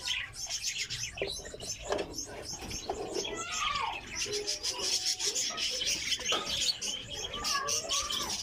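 Many aviary finches chirping together: rapid, overlapping high chirps, with a few lower calls among them. A few knocks in the first couple of seconds as the wooden nest box is set back against the wire cage.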